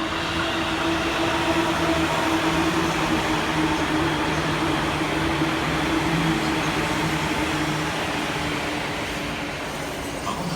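Japanese passenger train running: a dense rumble with a steady low motor hum, swelling in the first couple of seconds and easing slowly toward the end.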